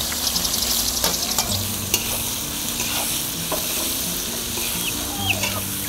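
Sliced onions tipped into hot oil with whole spices in an aluminium kadai, setting off a steady sizzle as they start to fry, with a few metal clinks in the first couple of seconds.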